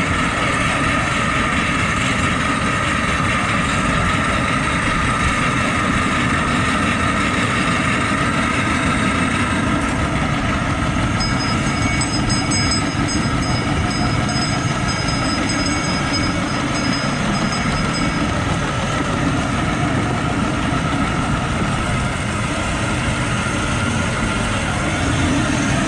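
Ride-on miniature railway train running along the track: a steady rumble of the locomotive and its wheels on the rails. A thin high-pitched squeal joins in for several seconds midway.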